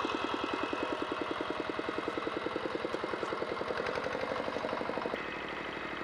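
A small walk-behind power tiller, about 25 years old, with its engine running in an even, rapid chug.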